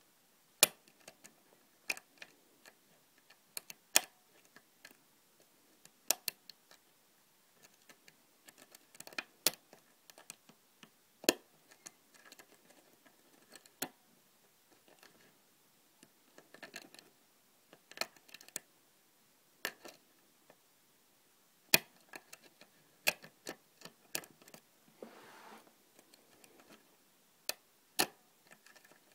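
Custom-pinned Yale euro cylinder lock being picked: sharp metallic clicks at irregular intervals, roughly one every second or two, as the pick works the pins, with soft scraping now and then.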